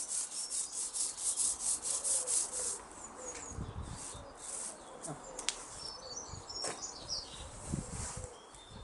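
Fast, rhythmic scratchy rubbing strokes, about five a second, stop about three seconds in. Birds chirp in the background with a few soft low thumps.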